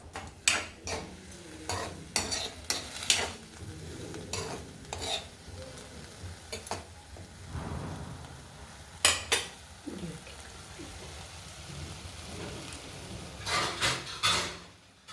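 A spatula stirring cluster beans in a pan, with sharp clinks and scrapes against the pan, in clusters near the start, about nine seconds in and near the end, over a low sizzle of the beans cooking in a little water.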